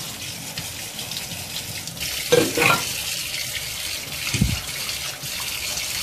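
Kitchen tap running a stream of water into a stainless-steel sink while it is rinsed by hand, a steady hiss of water. Two brief louder sounds come from the hand working in the sink, about two and a half and four and a half seconds in.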